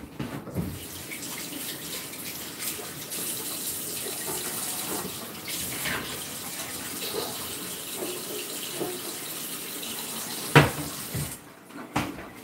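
Kitchen tap running steadily into a sink, then turned off near the end, with a sharp knock shortly before the water stops.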